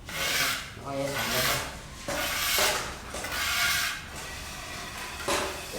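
Rubbing or scraping strokes, about four in a row, each under a second long.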